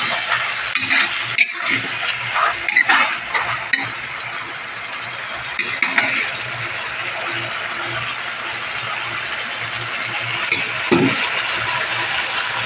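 Spatula scraping and clinking against a metal pan as boiled eggs in sauce are stirred, a run of clinks over the first few seconds; then a steady sizzle of the frying sauce, broken by an occasional clink and one dull knock near the end.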